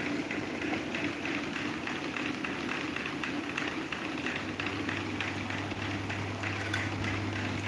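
Electric table fan running steadily, a continuous whir of moving air and motor. A low steady hum joins in about halfway through.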